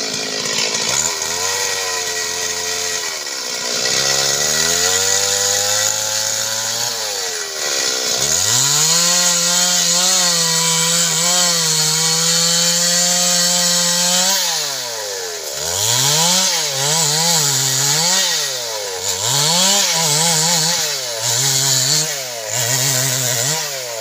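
Stihl two-stroke chainsaw cutting into a large log: the engine pitch climbs, holds at high revs for several seconds in the middle, then rises and falls repeatedly as the throttle is worked near the end.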